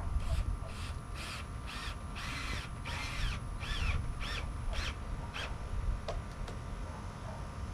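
A bird giving a rapid run of harsh calls, about two or three a second, for about five seconds and then stopping.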